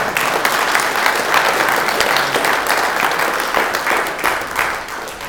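Small group of people applauding, many hands clapping together, thinning out near the end.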